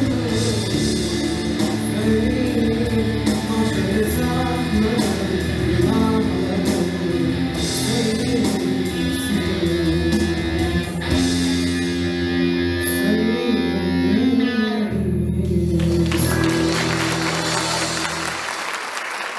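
School orchestra playing the instrumental close of a song, led by guitars over bass, ending on a held final chord. Applause breaks out about sixteen seconds in as the last chord dies away.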